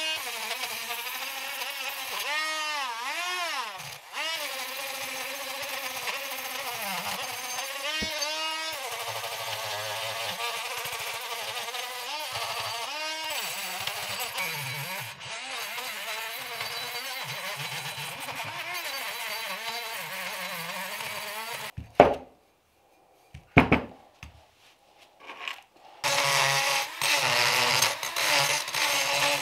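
Small handheld rotary tool running at high speed, its bit grinding rust and dirt off a cast-iron brake caliper to prepare the surface for paint. The whine sags and recovers in pitch as the bit is pressed into the metal. About 22 seconds in it stops for a few seconds, broken by two sharp knocks, then starts again louder.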